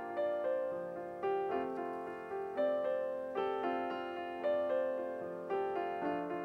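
Background piano music: a slow, gentle melody with a note or chord struck about once a second, each ringing and fading away.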